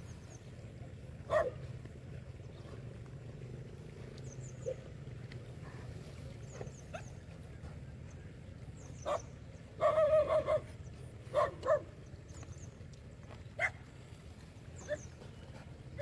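A handful of short animal calls, several in a quick cluster about ten seconds in, over a steady low background rumble, with faint high chirps.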